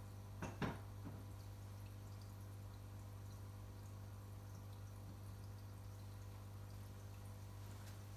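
Aquarium equipment running with a steady low hum, with faint dripping and trickling water. Two sharp taps come about half a second in.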